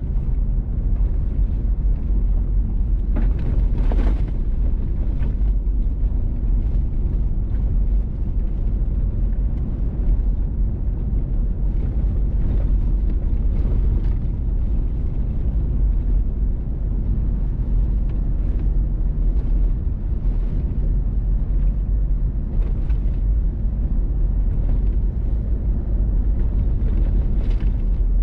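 Vehicle driving on a gravel road: a steady low rumble of tyres on gravel and engine, with a few brief clicks and knocks scattered through, the strongest about four seconds in.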